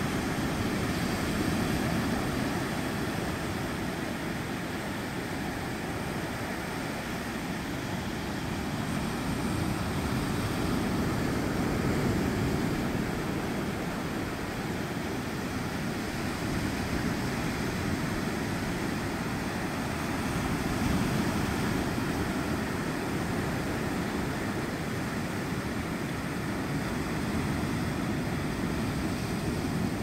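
Sea surf breaking and washing up a sandy beach: a steady low rushing of waves that slowly swells and eases.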